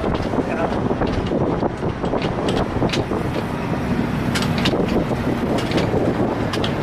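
Wind buffeting the camera microphone: a steady, loud rumbling rush, with a few faint clicks on top.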